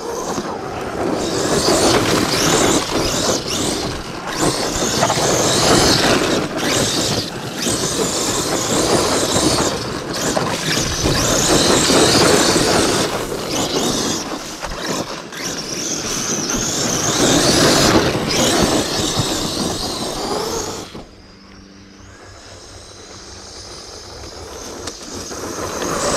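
1/5-scale ARRMA Outcast electric RC truck driven hard on loose dirt: brushless motor whine and tyres spraying dirt, loud for most of the stretch with a few brief dips, then much quieter about five seconds before the end.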